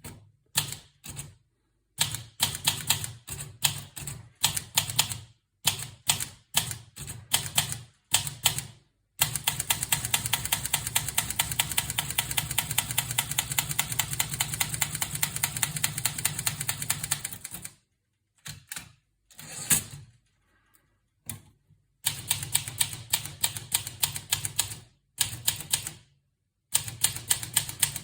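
Olivetti Lettera 32 portable manual typewriter being typed on: sharp key strikes clacking in runs. In the middle comes a long stretch of fast, even strikes, and there are a few abrupt silent gaps.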